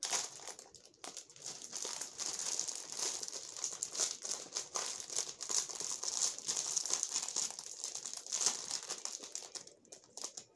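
Clear plastic wrapping around a pack of folders crinkling and crackling as it is pulled and worked open by hand, the noise easing off near the end.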